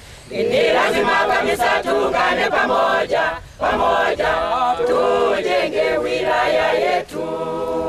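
A small group of men and women singing a song together without instruments, in short phrases with brief breaks between them.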